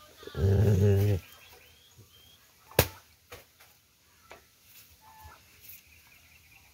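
A Rottweiler growls low for about a second near the start. Then comes one sharp knock, followed by a few lighter taps.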